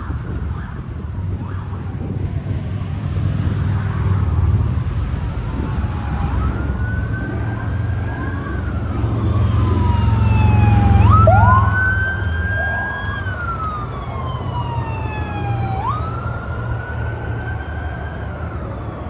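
Emergency vehicle sirens wailing, rising quickly and falling slowly, with two sirens overlapping for a few seconds, over the rumble of passing vehicles that peaks about halfway through.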